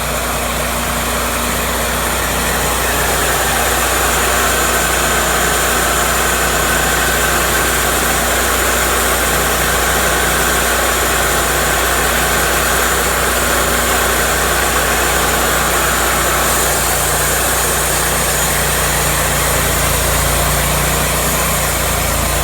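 Cook's MP-32 portable band sawmill running steadily, its engine and band blade making a continuous mechanical noise. A higher steady tone joins a few seconds in and drops away about three-quarters of the way through.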